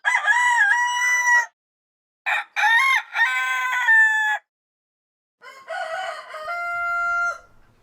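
Rooster crowing three times, each cock-a-doodle-doo lasting about one and a half to two seconds, with dead silence between them. The third crow is lower-pitched and ends on a long held note.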